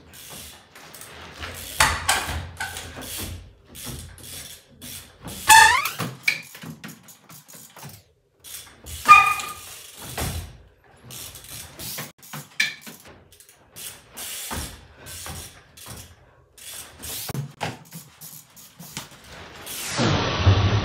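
Trials bike hopping across wooden pallets and cable reels: irregular knocks and thuds of the tyres landing on the wood, with a few short squeaks and bursts of freewheel ratchet clicking. A louder rush of noise comes near the end.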